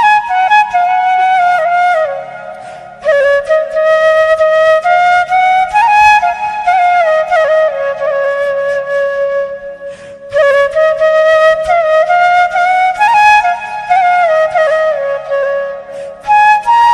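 Bamboo flute (bansuri) playing a slow folk melody that slides between notes, in phrases broken by brief breaths about two and a half and ten seconds in.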